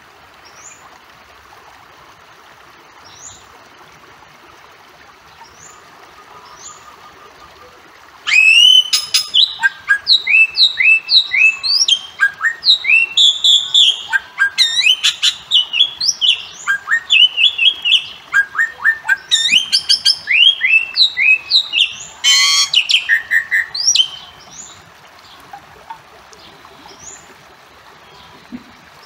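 Bali myna calling: a few faint chirps, then about eight seconds in a loud run of short, rising, whistled calls with a couple of harsh, raspy notes among them, lasting about fifteen seconds before dropping back to faint chirps.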